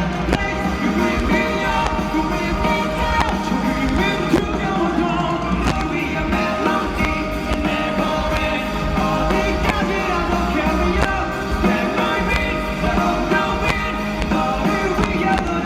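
A live rock band playing loudly through a concert sound system, with drums hitting steadily under guitars and held notes.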